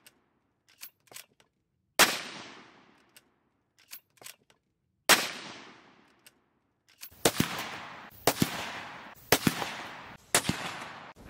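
Rifle shots from a bolt-action CZ 527 carbine firing 5.56 NATO Barnes Vor-TX TSX rounds: two sharp cracks about three seconds apart, each echoing away for a second or two, with small metallic clicks of the bolt being worked between them. From about seven seconds in, a quicker run of sharp cracks comes roughly once a second, some in close pairs.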